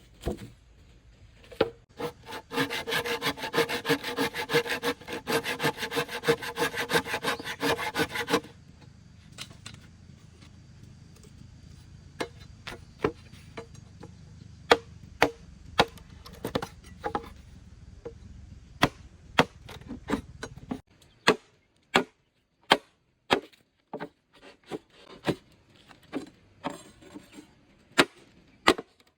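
Bamboo being sawn by hand, with a fast run of saw strokes for about six seconds. Then a long series of separate sharp knocks on wood, roughly one a second.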